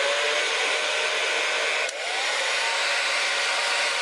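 Handheld hair dryer running: a steady rush of blown air with a fan-motor whine. About two seconds in there is a click and a brief dip, then the whine rises again.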